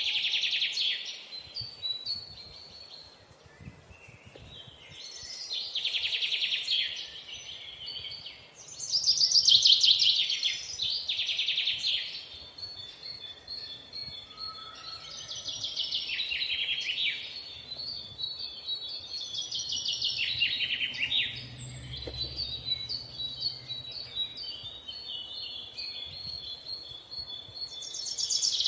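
A bird singing: bursts of rapid trilled chirps, repeated every few seconds.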